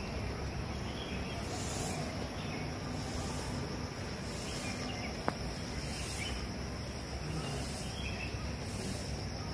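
Outdoor ambience: steady background noise with a high, even insect drone, and a single sharp click about five seconds in.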